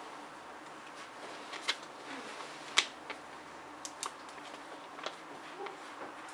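Quiet room tone broken by a few scattered, irregular light clicks and taps, the sharpest one just under three seconds in.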